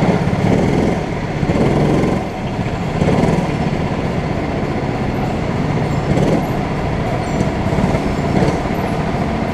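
Go-karts moving slowly in the pit lane, heard from the driver's seat: a steady low mechanical rumble that swells and eases every second or so.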